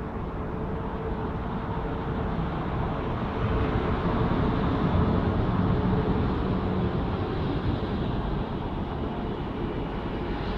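PKP Intercity EP09 electric locomotive pulling a passenger train out and passing close by, then its coaches rolling past. The sound is a steady rumble of wheels and running gear with a faint hum, loudest as the locomotive goes by about four to seven seconds in.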